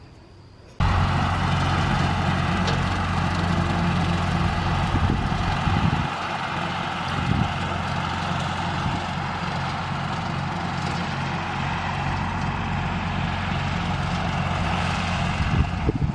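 Farm tractor engine running steadily with a low, even hum, starting abruptly about a second in.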